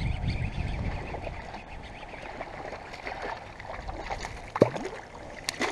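A hooked bass splashing and thrashing at the surface beside a kayak, over low rumbling water and handling noise. It ends with a couple of short sharp sounds and a brief pitched squawk about four and a half seconds in.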